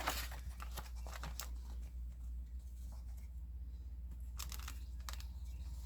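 Irregular crinkling and rustling of paper and packaging as a cross-stitch kit's printed chart and contents are handled, busier about four to five seconds in, over a steady low hum.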